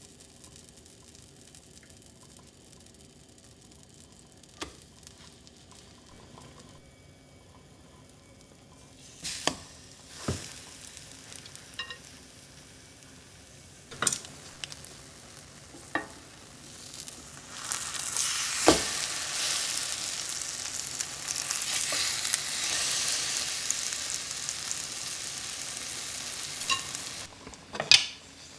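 A few sharp clicks and knocks of household handling, then about ten seconds of steady hissing that cuts off suddenly, followed by one more knock.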